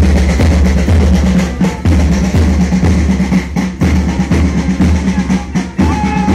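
Band drums beating a steady march for a parade march-past, with a deep drum stroke about twice a second. A higher melodic line comes in near the end.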